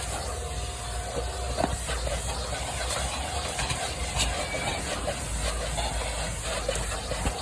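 Vacuum cleaner running steadily while hoovering a car floor mat, a constant hiss over a low hum, with a few faint clicks.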